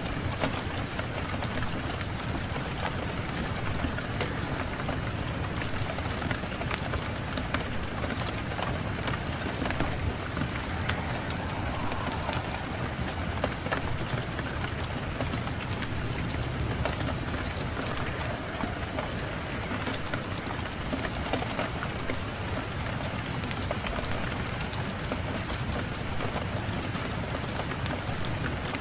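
Wood fire crackling in a fireplace, with frequent sharp pops and snaps over a steady low rush of wind.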